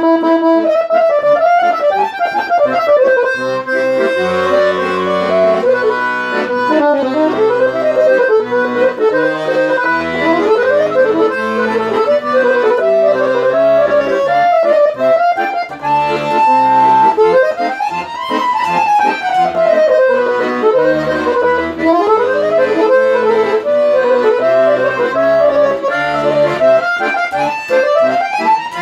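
Hohner Verdi II piano accordion played solo as a sound test: quick melodic runs sweeping up and down on the treble keys over a bass-and-chord accompaniment from the left-hand buttons.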